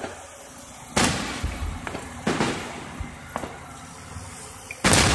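Aerial fireworks shells bursting: a loud bang about a second in, a few smaller bangs in the middle, and another loud bang near the end, each one dying away briefly.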